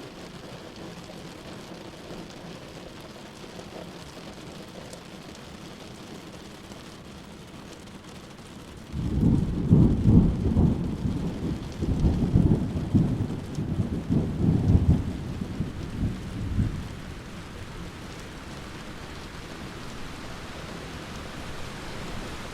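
Steady rain falling, then about nine seconds in a sudden roll of thunder that rumbles deep and loud in several surges for about eight seconds before fading back under the rain.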